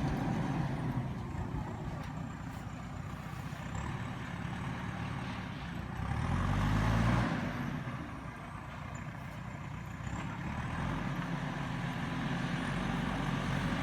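JCB backhoe loader's diesel engine running, revving up with rising pitch for about a second and a half around six seconds in, then dropping back to a steady run.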